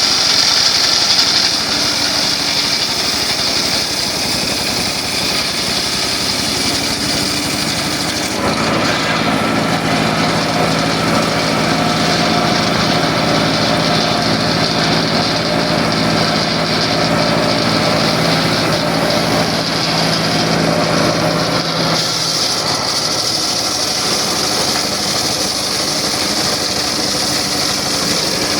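Circular saw running steadily. About eight seconds in its sound changes and a low steady hum comes up; this changes back again about 22 seconds in.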